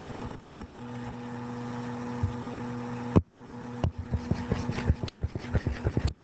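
A steady low hum with evenly spaced overtones, cut by a sharp click a little after three seconds in. It is followed by a quick run of light clicks and taps from a stylus on a touchscreen as the on-screen ink is erased.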